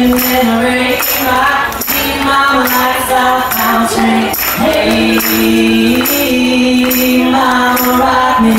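A man and a woman singing a country song with a crowd singing along, over a tambourine shaken on a steady beat, about two hits a second.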